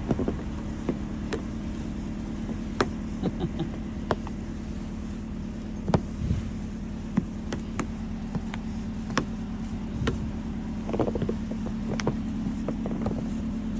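Car engine idling steadily, with irregular sharp scrapes and knocks of a kitchen spatula clearing snow and ice off the car.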